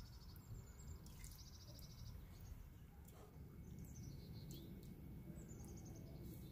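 Faint birdsong: a small bird's quick high trills, repeated several times over a low, steady background rumble.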